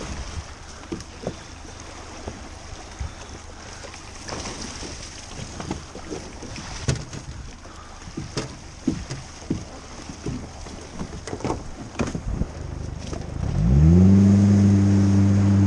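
Gillnet and its floats being hauled in over an aluminium jon boat's side, with scattered knocks and splashes of water. About 13.5 s in an outboard motor starts, its pitch rising quickly and then settling into a steady run.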